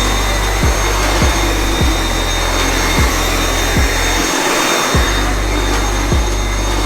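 Dyson V7 Animal cordless stick vacuum running steadily, a rushing hiss with a high steady whine, under background music with a steady beat.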